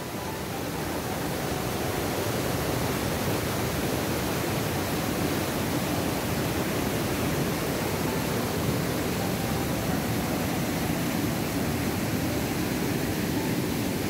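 Waterfall in strong monsoon flow, white water rushing over boulders: a steady rush that swells over the first two seconds and then holds.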